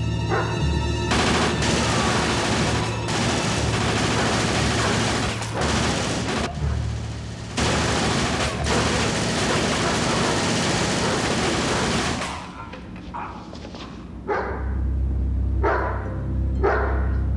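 A German shepherd barks, then submachine guns fire on full automatic in long continuous bursts for about eleven seconds, broken by a few short pauses. After the firing stops the dog barks again, several sharp barks in quick succession.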